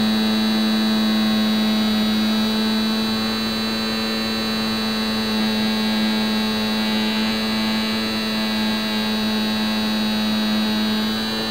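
Electric motor and propeller of a HobbyZone Champ RC plane in flight, picked up by a camera mounted on the airframe: a loud, steady buzzing hum that holds one pitch, with a thin high whine above it.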